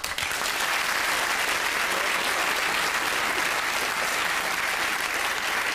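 Studio audience applauding. It starts all at once and holds steady.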